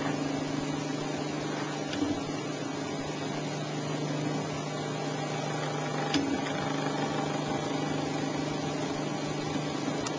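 Homemade CNC laser engraver running as it burns a pattern into a board: a steady hum with a few faint ticks, about two, six and ten seconds in.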